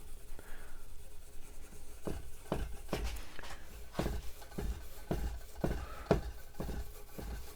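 4/0 steel wool scrubbing finish restorer into the lacquer of a wooden radio cabinet, in short scratchy strokes roughly two a second.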